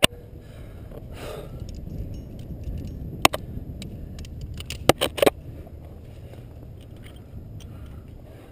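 Climbing gear clinking: a few sharp metallic clicks of carabiners and quickdraws being handled on a climbing harness, one near the start, one a little past three seconds and a quick cluster around five seconds, over a steady low rumble.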